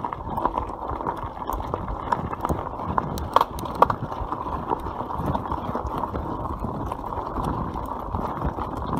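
YT Capra enduro mountain bike rolling fast down a gravel track: tyres crunching over loose stones and the bike rattling and clicking over the bumps, with two sharper knocks a little before halfway.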